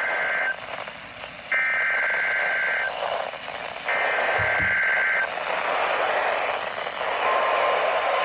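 NOAA Weather Radio SAME header: raspy digital data bursts of about a second and a half each, the last two coming about a second apart, over radio hiss. About seven seconds in, the radio's steady single-pitch warning alarm tone starts. Together they signal an incoming severe thunderstorm watch.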